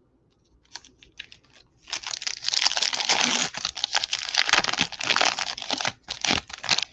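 Foil wrapper of a 2021 Bowman baseball card pack crinkling and tearing as it is ripped open by hand, a few small clicks first and then dense crackling from about two seconds in.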